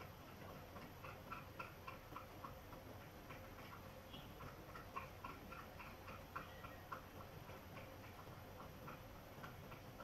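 Faint, quick ticking clicks, a few a second and somewhat uneven, over a low steady room hiss.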